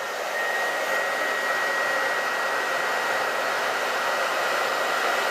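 Handheld hair dryer running steadily: an even rush of blown air, with a thin steady high tone running alongside.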